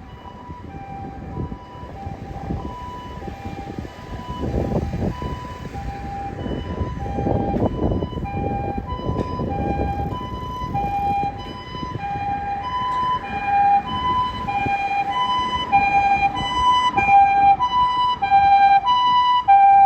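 Japanese ambulance's electronic two-tone siren sounding its alternating high-low 'pee-po' call, growing steadily louder as the Toyota Himedic ambulance approaches. A low rumble of traffic rises and falls in the middle.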